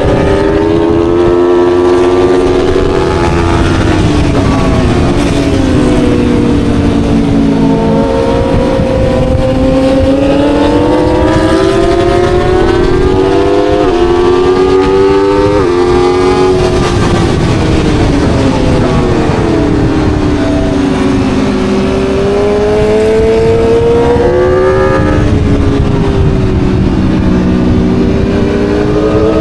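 Aprilia Tuono V4 motorcycle's V4 engine at track speed, its revs rising and falling in long sweeps through the corners, with two sudden jumps in pitch about halfway through as it changes gear. A steady rush of noise runs underneath.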